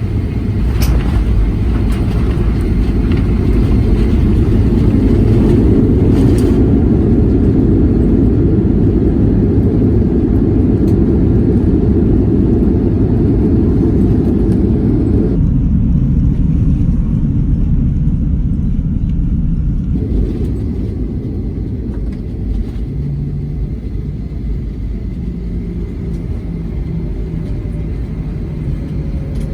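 Cabin noise of a Boeing 737-900 on its landing roll: a deep, loud rumble of the jet's engines and wheels that builds over the first few seconds, holds, then slowly eases as the airliner slows.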